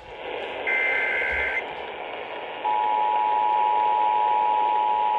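Emergency Alert System broadcast over radio hiss: a short warbling data burst of the SAME header ends about a second and a half in, and about a second later the steady two-tone EAS attention signal starts and holds. This signals the start of an EAS alert, here a required monthly test.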